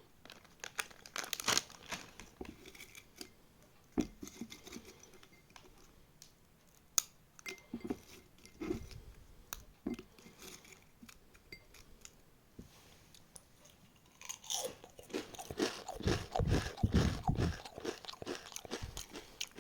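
Crisp snack being bitten and chewed close to the microphone: scattered crunches and crackles, then a dense run of loud crunching about three quarters of the way in.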